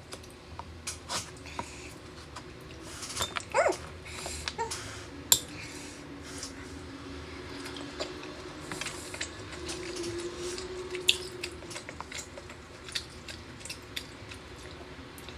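Steak knife and fork clicking and scraping on a wooden cutting board while chewing goes on, with a long, low, wavering hum through the middle.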